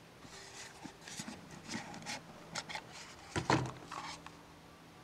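A small cardboard product box being opened by hand, its lid worked off in a run of short rubbing and scraping strokes, with a louder knock about three and a half seconds in.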